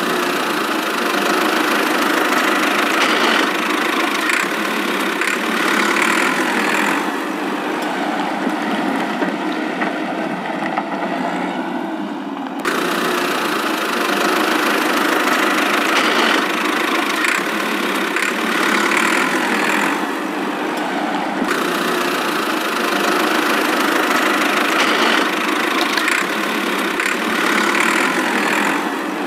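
Steady engine running sound, like a tractor engine idling, even in level throughout. Its texture changes abruptly about twelve seconds in and again about twenty-one seconds in.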